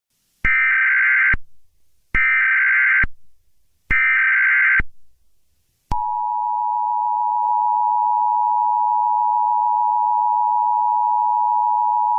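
Emergency Alert System tones opening a tornado warning bulletin: three short data bursts of the alert header, each just under a second, then about six seconds in the steady two-tone attention signal starts and holds.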